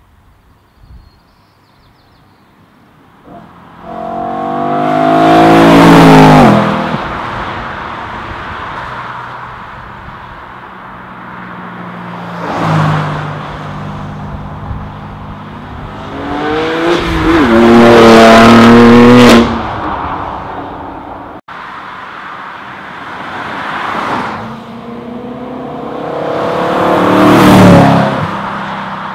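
Cars driving past one after another, three of them accelerating hard with the engine note climbing in pitch as they pass. The last of these is a 2013 BMW E92 M3's V8 through an Eisenmann Race exhaust.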